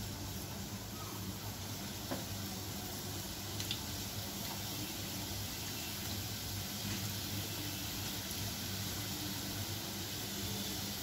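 Modaks deep-frying in hot oil in a kadhai: steady sizzling and bubbling as more are lowered in by hand, with a low hum underneath.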